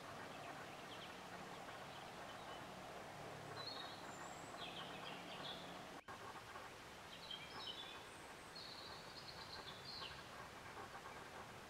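Outdoor ambience with a steady background hiss, where small birds give short high calls in two bunches, one about four seconds in and one from about seven to ten seconds. A faint low hum sits under the first few seconds.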